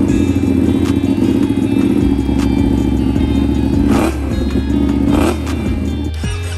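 Ducati 959 Panigale's Superquadro V-twin, breathing through a custom tuned exhaust, revved on the stand. It is held at steady raised revs for about four seconds, then drops and is blipped once more before falling back toward idle near the end.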